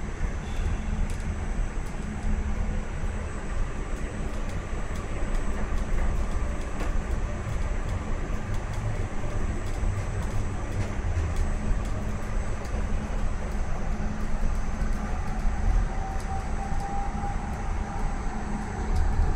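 Tram running along its tracks, heard from inside the passenger cabin: a steady low rumble of wheels on rail with scattered light clicks, and a thin whine that comes in near the end.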